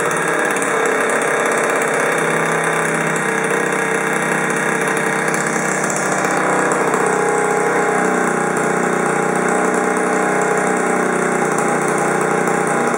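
Benelli 49X 50cc two-stroke scooter engine fitted with a LeoVince ZX expansion-chamber exhaust, idling steadily with a small wavering in pitch.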